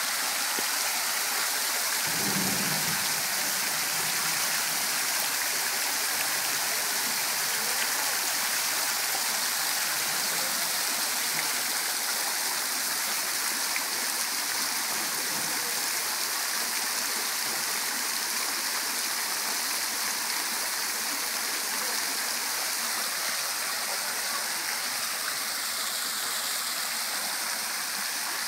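Tiered mushroom-shaped fountain running, water falling off the rims of its caps in a curtain and splashing onto the bowl below: a steady, even splashing.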